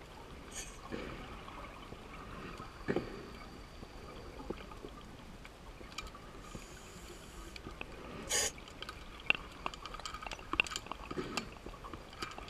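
Underwater sound of a scuba dive: a diver's exhaled bubbles gurgling, with scattered sharp clicks and a louder rush of bubbles about eight seconds in.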